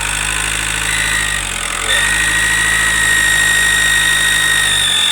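Ford Focus II 1.8 turbodiesel engine revved and held at raised speed. A steady high whistle comes in as the revs step up about two seconds in, and the engine drops back at the end. The whistle is an unwanted noise that is not cured by removing the auxiliary belt, and the mechanics suspect the upper timing-belt idler pulley.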